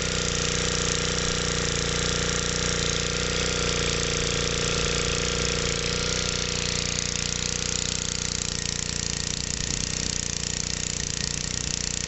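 Small BSA single-cylinder engine running steadily at idle, freshly cold-started after sitting unused for a couple of months.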